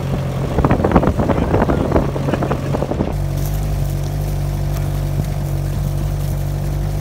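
Vehicle engine running with a steady low hum while driving across a corn stubble field. For the first three seconds an irregular jumble of louder sounds lies over the hum, then it changes abruptly to the steady engine hum alone.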